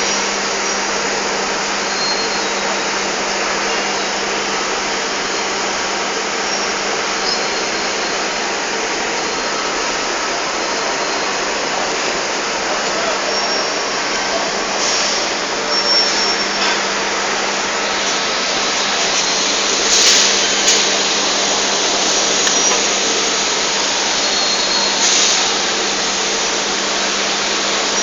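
Machinery running steadily in a cooling-water pump house: a constant loud whirring rush with a steady low hum, and a few brief clicks or knocks in the second half.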